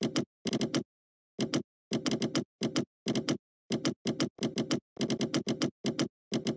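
Typing on a computer keyboard: quick runs of three to six keystrokes with short pauses between them, and dead silence in the gaps.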